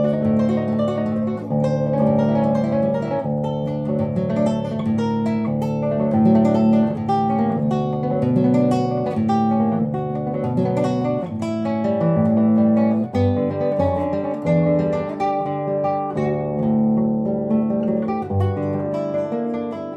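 Classical nylon-string guitar played fingerstyle: a steady stream of plucked notes and chords over a repeated low bass note.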